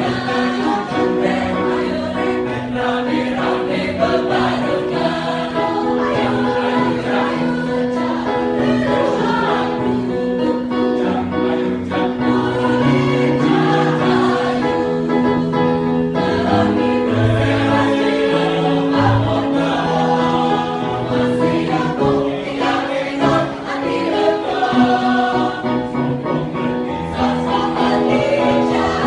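A choir singing in full voice, holding sustained chords with several parts moving together.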